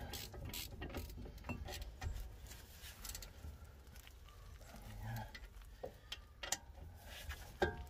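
Scattered faint metallic clicks and taps from steel bolts being threaded into a brake caliper carrier and turned in by hand before being torqued down.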